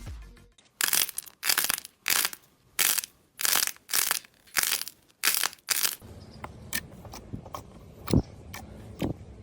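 Slime being squeezed and crushed by hand, about nine short noisy squeezes a little over half a second apart, then softer small pops and clicks with a couple of low thumps near the end.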